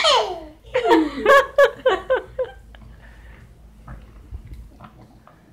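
People laughing: a voice slides down in pitch, then a run of short laughs for about two seconds, fading to quiet with a few faint clicks.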